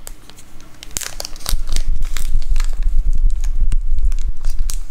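Small plastic zip bag crinkling and rustling as it is handled close by, in irregular crackles, louder from about a second in.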